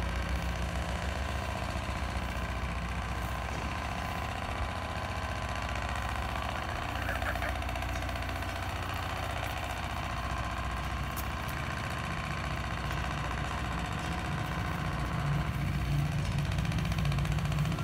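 A steady engine or motor running at an even idle throughout, a continuous low rumble with a fast, even pulse.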